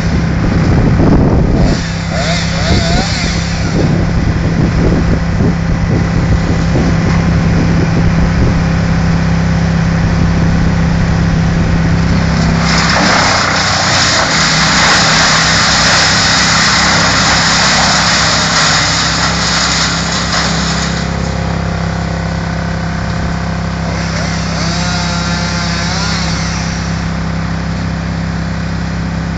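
Wood chipper's engine running steadily at a constant speed. About halfway through, a loud stretch of grinding and shredding lasts several seconds as material is chipped, with shorter bursts of it near the start and near the end.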